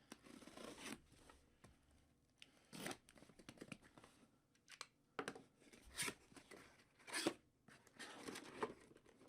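Faint rustling and tearing of trading-card packaging being handled and opened, with a few sharper crackles about 3, 6 and 7 seconds in.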